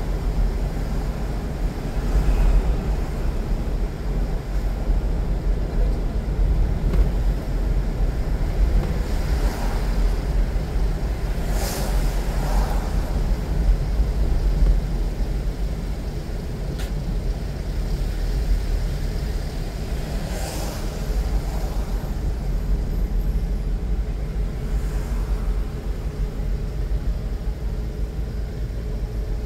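Car driving on city streets: a steady low rumble of road and engine noise, with two brief louder hissing swells, about twelve and twenty seconds in.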